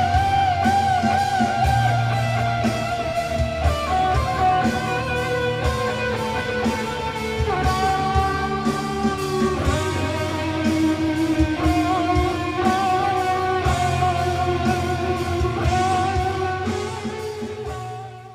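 Electric guitar played through an amplifier and effects pedalboard: long, sustained lead notes with vibrato over a low held tone, fading out near the end.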